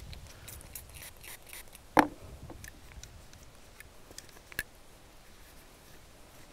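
Cloth rag rubbing and scraping over an AR-15 upper receiver and barrel, wiping off spray cleaner. A sharp knock about two seconds in, and a lighter click later on.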